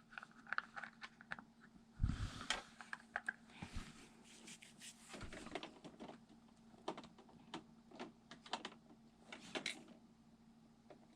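Faint, scattered clicks and taps of small plastic toys being handled and set down, with a couple of duller knocks.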